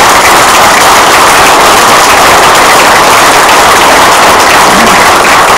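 Audience applauding loudly.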